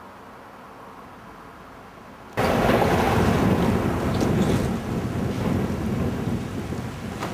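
Faint outdoor background, then a couple of seconds in loud, steady rushing of river water starts abruptly.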